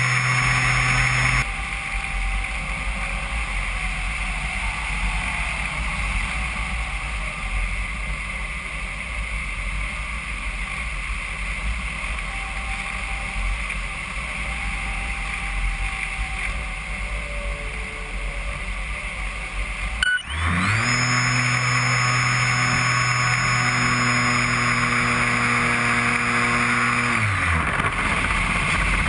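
An RC model airplane's motor and propeller, heard from a camera on the plane: a steady hum with a high whine that cuts off about a second and a half in, leaving wind rushing past while the plane glides. About 20 seconds in there is a click and the motor quickly spins back up, runs steadily, then winds down again near the end.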